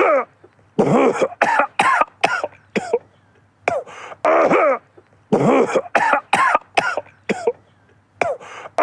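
A man coughing in fits: clusters of several quick, voiced coughs, each fit lasting a second or two with short quiet gaps between.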